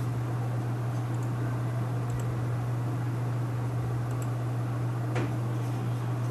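A steady low hum with a faint hiss. Over it come a few faint clicks, some in quick pairs, from a computer mouse being clicked to open printer settings.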